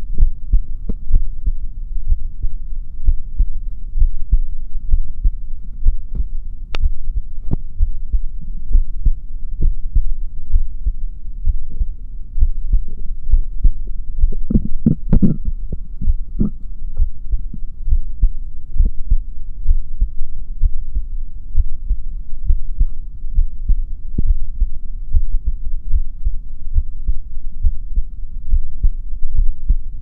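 A person's heartbeat heard close up: a continuous run of low, muffled thuds over a steady low hum, with one louder, longer low rumble about halfway through.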